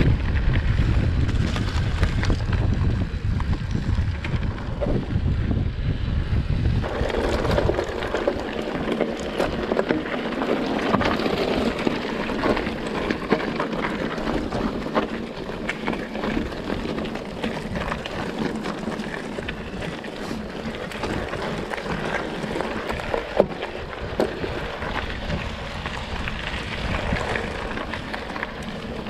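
Wind buffeting the microphone, heavy and rumbling for about the first seven seconds, then lighter and hissier for the rest.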